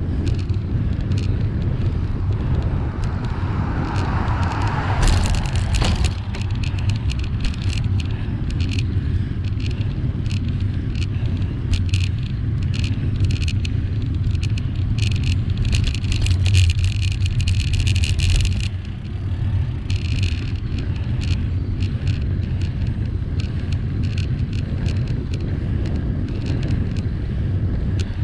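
Bicycle rolling along tarmac, picked up by a bike-mounted camera: a steady low rumble of wind and road vibration with frequent rattling clicks, busiest about sixteen to eighteen seconds in. A brief swell of noise rises and falls around four to six seconds in.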